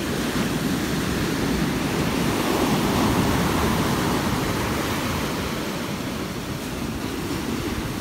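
Ocean surf breaking and washing up a sandy beach in a continuous rush, swelling about two to three seconds in and then easing off.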